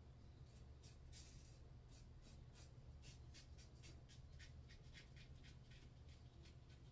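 Faint, quick scratching strokes of a Mühle R41 safety razor with a Treet Black Beauty blade cutting through lathered stubble, coming in runs of several strokes, over a low steady hum.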